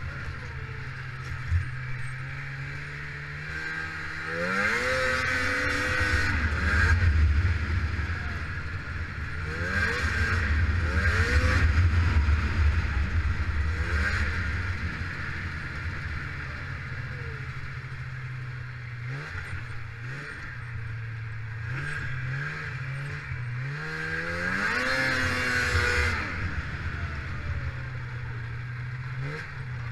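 Snowmobile's two-stroke twin engine running under way on a 1995 Polaris Indy 500. Three times it climbs in pitch and gets louder as the throttle opens, each time easing back to a steady low running note, with a string of short throttle blips about two-thirds of the way through.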